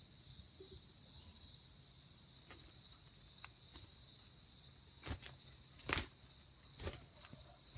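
A steady, high-pitched drone of insects, held at one pitch in the forest background. Several sharp snaps or clicks cut across it about two and a half, three and a half, five, six and seven seconds in; the one about six seconds in is the loudest.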